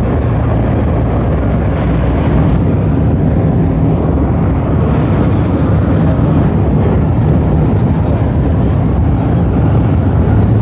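Steady road and engine noise of a car driving, heard inside the cabin: a continuous low rumble with a faint steady hum.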